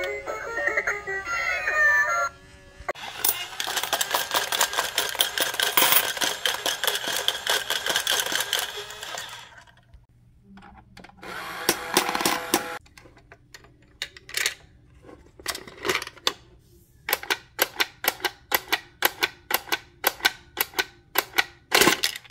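Battery-operated novelty coin banks playing short electronic jingles, with the clicking and whirring of their small plastic mechanisms as they take coins. In the second half comes a run of sharp clicks that speeds up to about three a second near the end.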